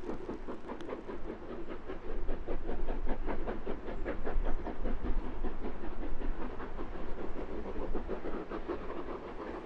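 Steam locomotive working a train past under power, its exhaust beating in quick, even chuffs about six a second. The beats grow louder in the middle and ease off toward the end.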